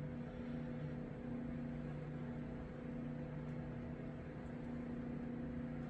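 Steady low mechanical hum, with a few held tones and no shots.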